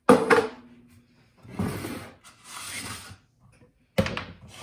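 Kitchen things being handled on a counter: a sharp knock with a brief metallic ring at the start, two stretches of rustling and scraping, then another sharp knock about four seconds in.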